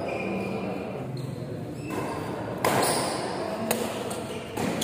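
Badminton rackets striking a shuttlecock during a doubles rally: three sharp hits in the second half, ringing out briefly in a large hall, with voices murmuring underneath.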